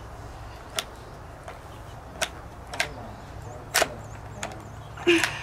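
Sharp metallic clicks, one every second or so, as 7.92×57mm rounds are pressed one at a time into the magazine of a Karabiner 98k bolt-action rifle. A louder clatter of the action comes near the end.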